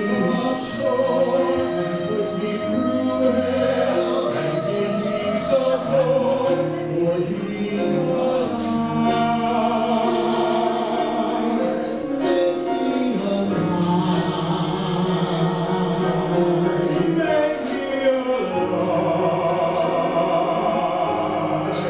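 A small mixed group of men and women singing a Broadway show tune in harmony through handheld microphones, with instrumental accompaniment, a male lead voice to the fore.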